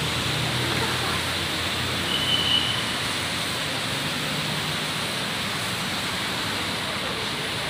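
Steady hiss of rain and of traffic tyres on a wet city road, with low engine rumble fading in the first second. A short high squeak sounds about two seconds in.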